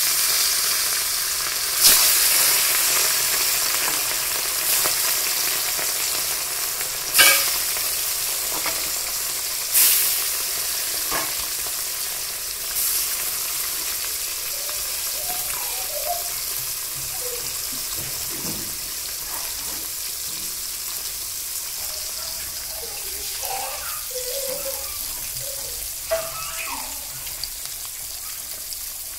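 Pieces of kalla fish sizzling as they shallow-fry in hot oil in a steel kadai, a steady hiss that slowly quietens. Sudden louder flare-ups of sizzle come about 2, 7 and 10 seconds in, as more pieces go into the oil.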